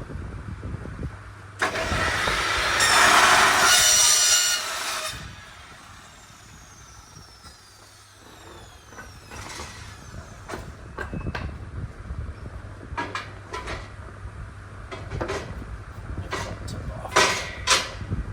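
A motorised tool runs loudly for about three and a half seconds and then winds down, followed by scattered knocks and clanks.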